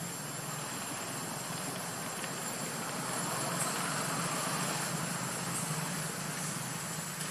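Steady outdoor background noise: an even rush with a low hum underneath that swells for a few seconds in the middle, and a thin high steady tone throughout.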